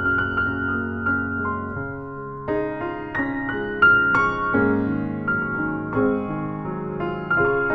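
Improvised piano duet for four hands: chords and single melody notes struck every second or so and left to ring on.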